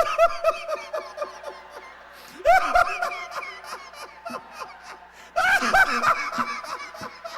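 People laughing hard in three loud bursts, each a quick run of high-pitched ha-ha pulses, about two and a half seconds apart. This is the uncontrolled 'holy laughter' of a charismatic revival meeting.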